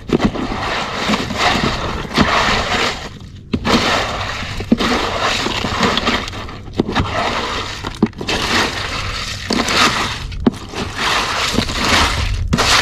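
Ice being broken up and shovelled, a run of crunching and scraping in long bursts with brief pauses between.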